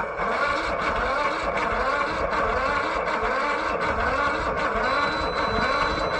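Riding lawn mower's engine being turned over by its electric starter for about seven seconds, cranking at an even pace without firing. This is a cold-soaked engine with a frozen choke cable, which the owner suspects is short of both cranking power and fuel.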